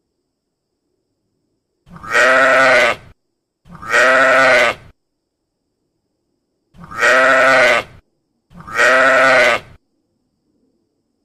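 Sheep bleating: four bleats of about a second each, in two pairs.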